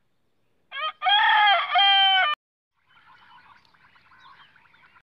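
Rooster crowing once, a long pitched cock-a-doodle-doo that cuts off abruptly about two and a half seconds in. A much fainter scratchy sound follows.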